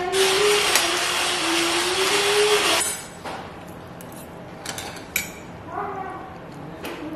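A loud, steady whirring noise with a wavering tone cuts off abruptly about three seconds in. After it, a metal fork clinks against a ceramic dinner plate a few times as food is picked up.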